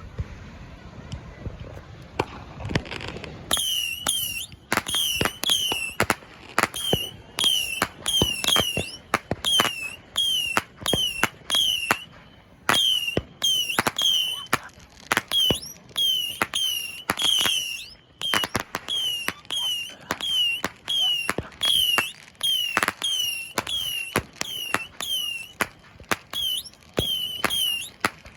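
A Saturn missile battery firing its small whistling rockets in quick succession, starting about three and a half seconds in. Roughly two go off each second, each a sharp crack with a short whistle that falls in pitch.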